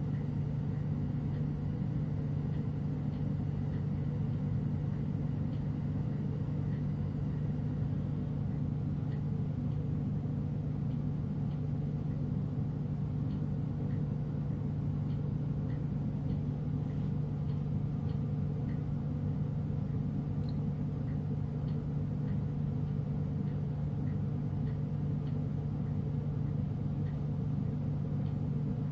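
Glassworking bench torch burning steadily, under a constant low hum and rumble, with faint light ticks now and then.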